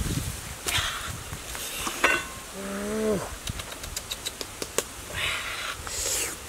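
Footsteps rustling through dry leaves and grass, with scattered light taps and clicks. About two and a half seconds in there is one short pitched call, under a second long, that drops in pitch at its end.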